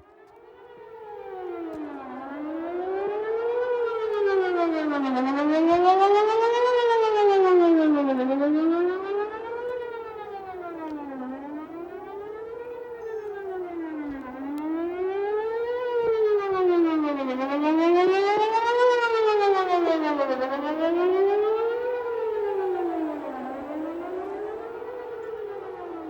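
Whelen WPS 4008 electronic outdoor warning siren sounding a test tone that glides steadily up and down, about every two seconds. It swells louder and fades twice as the rotating speaker array faces toward and away.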